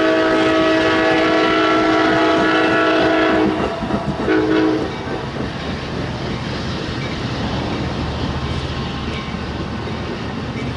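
Amtrak San Joaquins passenger train rolling past with a clickety-clack of bilevel cars over the rail joints, while its air horn sounds one long blast of about three and a half seconds, then a short one. After the horn the rolling sound eases off as the train draws away.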